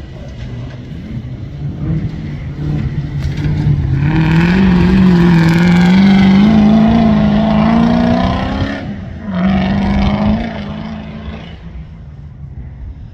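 Competition safari off-road racing vehicle's engine running hard, its revs climbing and its sound swelling to the loudest in the middle as it draws close. About nine seconds in the revs drop for a moment, as at a gear change or lift, then pick up again before the engine fades away.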